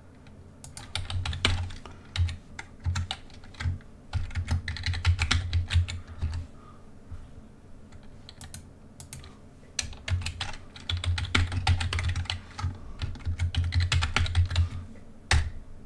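Typing on a computer keyboard: two runs of quick keystrokes with a quieter pause between them, then a single louder key click just before the end.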